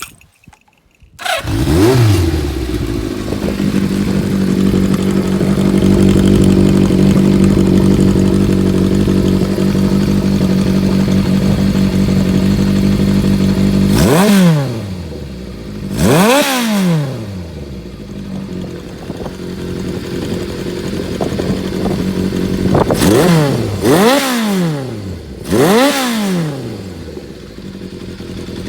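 Motorcycle engine breathing through a vintage Yoshimura mechanically bent collector exhaust, starting about a second in and settling to a steady, slightly raised idle. About halfway through it is blipped twice, then three more times in quick succession near the end, each rev rising sharply and falling back to idle.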